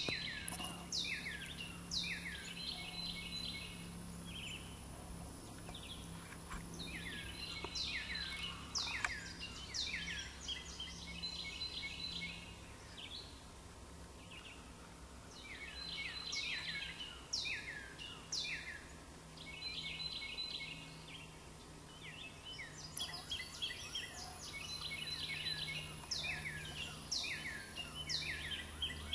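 Songbirds singing in the riverside woods: bursts of quick downward-slurred notes and trills that recur every several seconds. A steady low hum runs underneath.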